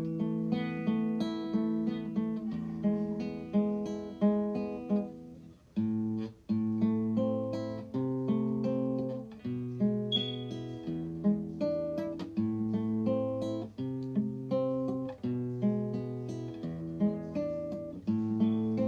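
Background music: acoustic guitar playing a steady run of plucked notes, with a brief break about six seconds in.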